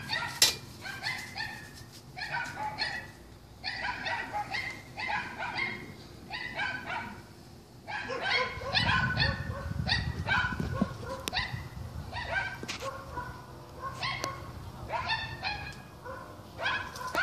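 Dogs barking over and over, in runs of several barks a second with short pauses between.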